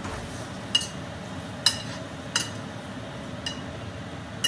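A metal utensil clinking against a frying pan five times at uneven intervals, each a short, ringing clink, over a steady low hum.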